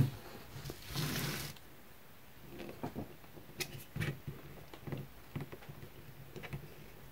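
Light taps and knocks of stamps being inked on an ink pad and pressed down onto paper, with a brief rustle about a second in.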